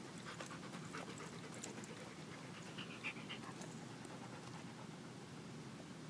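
Dog panting quietly and steadily.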